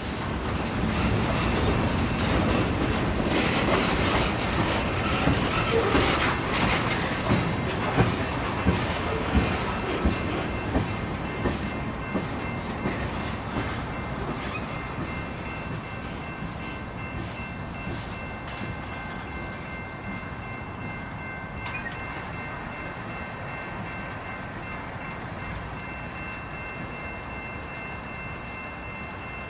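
Norfolk Southern freight train rolling past, its wheels clacking over rail joints in a run of about seven regular clacks a little before the middle, then fading as the train moves away. Faint steady high-pitched tones ring through it.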